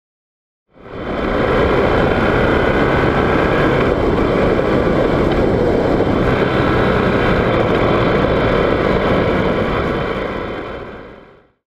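Enduro motorcycle running on a dirt road, heard from an onboard camera: a steady engine with heavy wind noise. Fades in about a second in and fades out near the end.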